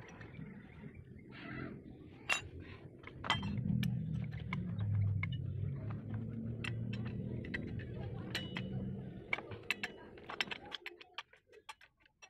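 Steel spanners clinking and tapping against a brush cutter's centrifugal clutch as a tube spanner and a ring spanner are fitted and turned on it to take the clutch off. Scattered sharp metal clinks come throughout, over a low rumble that fades away near the end.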